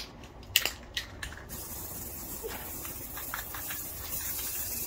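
An aerosol can of dark gray spray paint: a few sharp clicks in the first second and a half, then a steady spraying hiss as the paint goes onto poster board.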